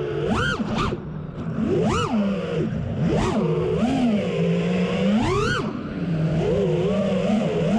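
FPV quadcopter's brushless motors and propellers whining, the pitch swooping sharply up and back down with each throttle punch and settling to a steady hum between them.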